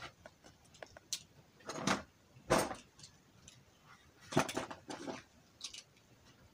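Handling noise as a Beyblade spinning top is swapped out by hand: a handful of short, scattered clicks and rattles, the loudest about two and a half and four and a half seconds in.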